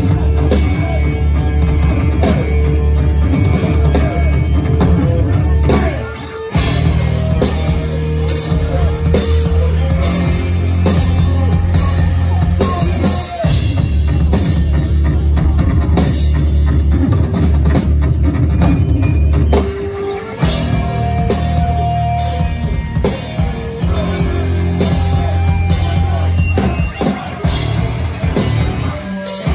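Hardcore punk band playing live and loud: pounding drum kit under heavy, distorted bass-range instruments. The band stops for an instant about six seconds in and again about twenty seconds in, then comes straight back in.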